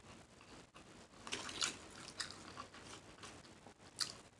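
A person chewing and smacking food close to the microphone, with a few short crunches; the sharpest comes near the end.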